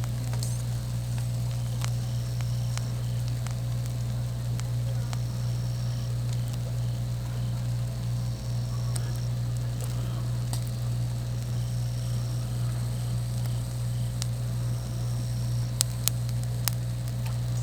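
A steady low hum with scattered crackling clicks, a few sharper ones near the end. A short high-pitched chirp of under a second repeats about every three seconds.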